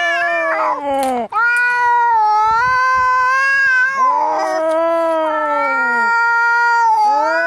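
Angry cats caterwauling: long, drawn-out, wavering yowls, one after another with brief breaks between them, the threatening yowl of cats squaring up to fight.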